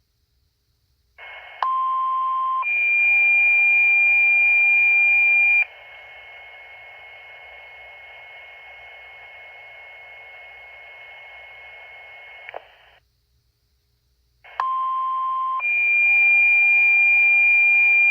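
Two-tone sequential pager alert tones sent over a fire dispatch radio channel, twice. Each time a lower steady beep lasts about a second and jumps to a higher, louder tone held for about three seconds. Radio hiss lies between the two sets, and a click marks where the carrier cuts off.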